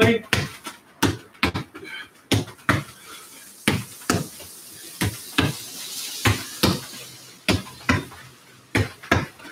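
Football passed again and again off a rebound wall with left and right foot. The sharp thuds come mostly in pairs, kick and rebound, with a pair roughly every second or so.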